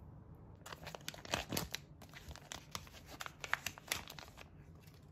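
Plastic sheet-mask packet crinkling and rustling as it is opened and the wet sheet mask is pulled out of it, in two stretches of crackling with a short break about two seconds in.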